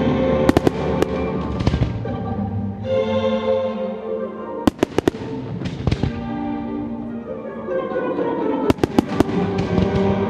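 Aerial firework shells bursting in three quick clusters of sharp bangs, a few in each, near the start, in the middle and near the end, over steady sustained music.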